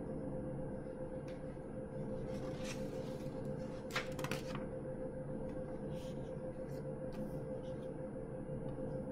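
Room tone: a steady electrical hum, with a few faint clicks scattered through it.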